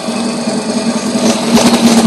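Boat motor running with a steady drone, getting louder about one and a half seconds in.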